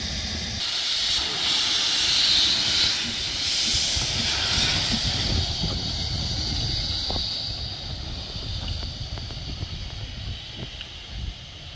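Steam hissing from the narrow-gauge steam locomotive Dolbadarn, a Hunslet quarry tank engine, standing at the platform. It starts strong just under a second in and dies down over the second half.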